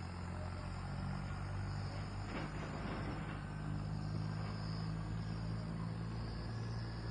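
Steady chorus of insects such as crickets, with a low steady hum underneath.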